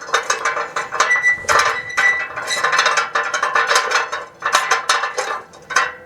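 Metal photo-booth pillar sections clicking and clinking rapidly as the upper pillar is fitted into the bottom pillar by hand, with a brief metallic ring about a second in.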